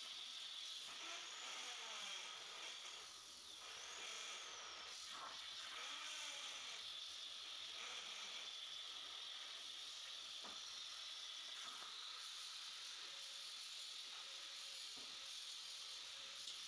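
CNC plasma cutter cutting steel plate: a steady hiss from the plasma torch.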